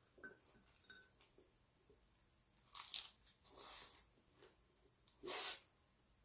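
Close-miked chewing and crunching of a mouthful of pan-fried conger eel, with a few short crunchy bursts from about three to five and a half seconds in.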